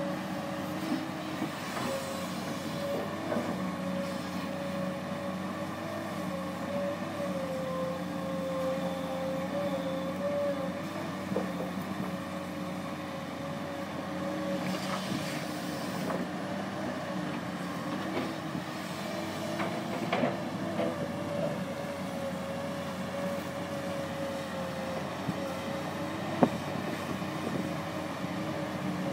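Komatsu PC200-8 hydraulic excavator's six-cylinder diesel engine running steadily under work, a hum of several tones that wavers slightly in pitch. A few scattered knocks, with one sharp clank near the end.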